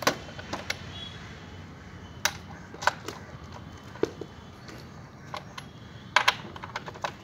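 Scattered metallic clicks and clinks of a chainsaw's T-handle socket wrench working on the guide-bar nuts of a Stihl MS 250 as they are tightened down. The sharpest come just at the start and as a close pair about six seconds in.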